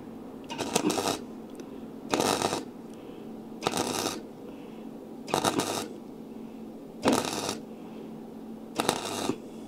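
Flux-core (gasless) MIG welder tack-welding 0.8 mm sheet steel at 52 amps: six short bursts of arc crackle and sputter, each about half a second, one roughly every second and a half, with a lot of spatter thrown off.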